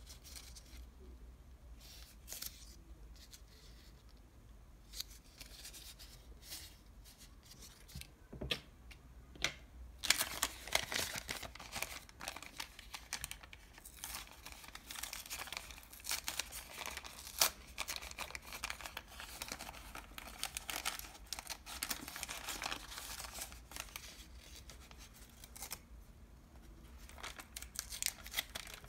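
Thin paper of a KFC french-fries bag crinkling and rustling as hands fold and crease it. Only scattered light rustles and taps at first, then dense, continuous crinkling from about a third of the way in.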